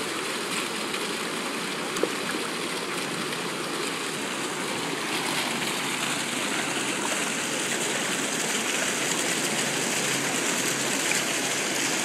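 Fountain jets bubbling up through shallow water, a steady rush of splashing water that grows a little louder from about halfway through.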